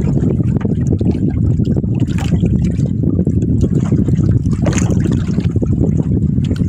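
Water trickling and splashing around a small fishing boat, over a loud, steady low rumble, with a couple of brief sharper splashes about two and five seconds in.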